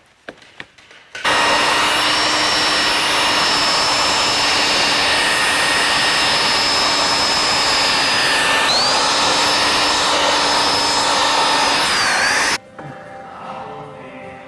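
Electric belt sander grinding back gelcoat on a fibreglass toe rail. It starts about a second in and runs steadily with a high whine. Its pitch dips briefly twice under load, the second time just before it switches off near the end.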